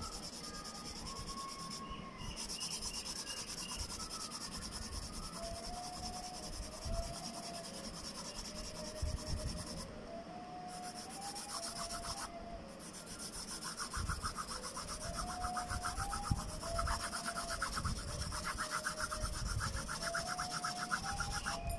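Graphite pencil shading on a paper drawing sheet being rubbed and blended with a scrap of paper, in repeated back-and-forth rubbing strokes.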